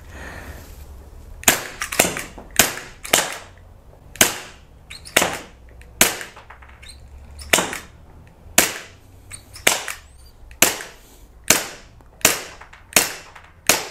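Gas blowback airsoft Glock 19 pistol firing about fifteen single shots at an uneven pace of roughly one a second. Each shot is a sharp crack with the slide cycling back.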